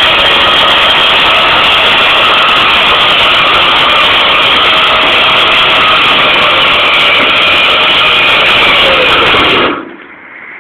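Flatbed tow truck's loading machinery running loud and steady while a wrecked Škoda saloon sits on the tilted bed. The drone sags in pitch a little and then cuts off about nine and a half seconds in.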